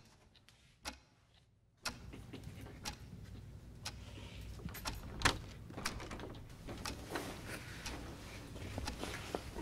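Wall clock ticking about once a second over low classroom room noise, with small clicks and rustles.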